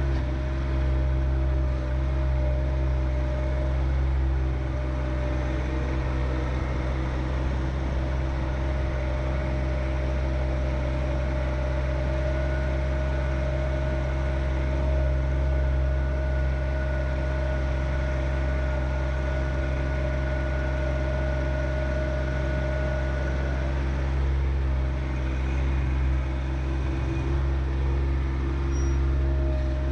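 John Deere 1025R subcompact tractor's three-cylinder diesel engine running steadily. A thin steady whine rides over it for about ten seconds in the middle.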